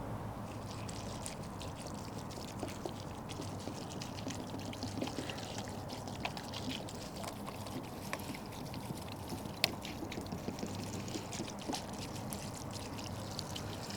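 Water poured steadily onto a plant's soil, with scattered small ticks.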